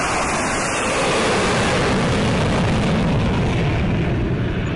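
Jet airplane flyby sound effect: a loud, even rushing noise that holds steady and eases off slightly near the end.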